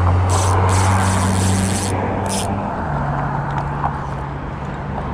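Road traffic passing close by: the drone of car engines and tyre noise, with a steady low engine hum that shifts up in pitch about three seconds in.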